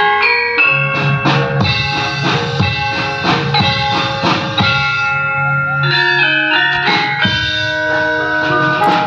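Javanese gamelan playing: struck bronze metallophones and gongs ring in a busy, continuous pattern, with hand-drum strokes among them.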